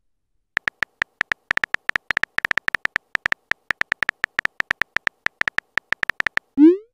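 Simulated phone-keyboard typing clicks from a texting-story app: rapid, irregular taps for several seconds as a message is typed, then a short rising swoop sound near the end.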